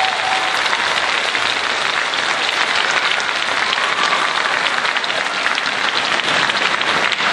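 Large audience applauding steadily, a dense unbroken clatter of many hands clapping.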